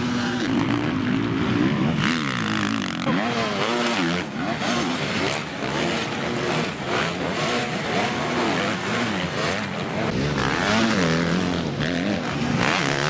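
Motocross motorcycle engines, more than one bike, revving up and dropping back over and over as the riders work the throttle through the jumps.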